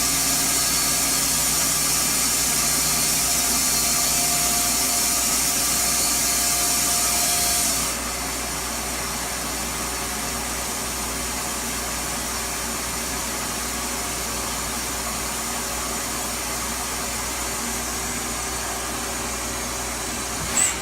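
Doosan Puma 2100Y CNC lathe running under power: a steady machine hum with several faint tones and a strong high hiss that cuts off about eight seconds in. The machine then runs on more quietly, and a brief sharp high chirp comes near the end.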